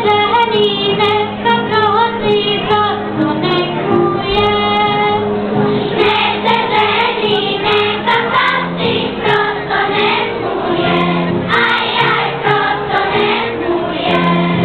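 Children's choir singing over held low accompanying notes; the singing turns fuller and denser about six seconds in.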